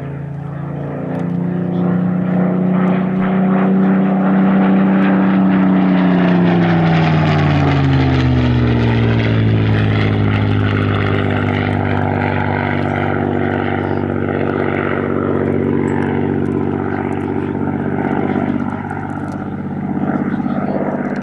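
Spitfire PR XI's Rolls-Royce Merlin V12 engine and propeller making a low pass: the steady engine note grows louder, then drops in pitch as the aircraft goes by, and carries on lower as it draws away.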